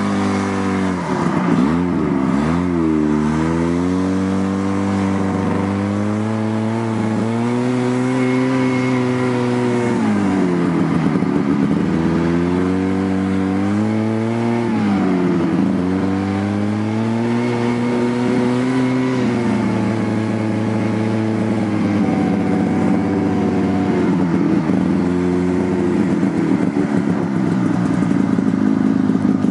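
Snowmobile engine running under way, heard from aboard, its pitch rising and falling with the throttle and dipping sharply a few times as it eases off and picks up again.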